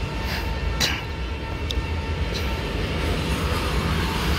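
Steady low rumble of a train in the railway yard, with a few light knocks in the first couple of seconds.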